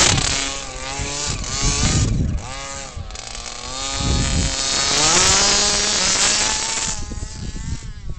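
Small 23cc two-stroke gas engine of an RC bigfoot truck with a DDM tuned pipe, revving up and down repeatedly as the truck drives; the revs fall away near the end. The owner says the engine still needs tuning.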